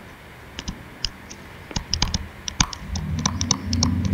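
Pen tip tapping and clicking on a writing tablet in short irregular clicks as words are written out by hand. A low steady hum comes in about three seconds in.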